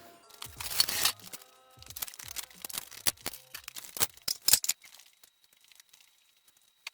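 Irregular clicks, scrapes and rustles of hand work inside the truck cab, busiest in the middle and thinning toward the end. Background music fades out in the first second or so.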